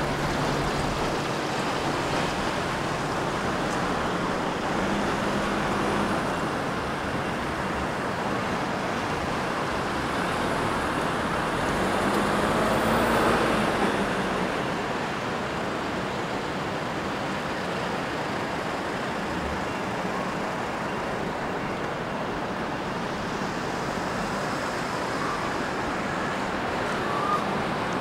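Steady city road traffic noise, with cars and a van passing at a street crossing; one vehicle passes louder about halfway through.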